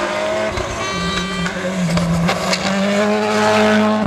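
World Rally Car's turbocharged four-cylinder engine driven hard, its pitch stepping down and then climbing again as it changes gear and accelerates. A brief high-pitched squeal about a second in.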